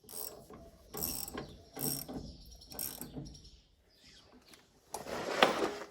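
Socket ratchet clicking in short strokes, about one a second, as it backs off the screw of a pulley puller to ease the pressure on a stuck combine countershaft sheave. A louder, longer burst of the same clicking comes near the end.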